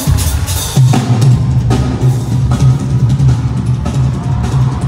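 Drum kit played live through an arena PA, with electric bass underneath; a deep, pulsing low note comes in about a second in.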